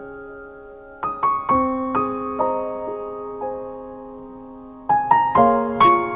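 Soft, slow background piano music: struck notes and chords ring out and fade, with new notes coming in about a second in and another group near the end.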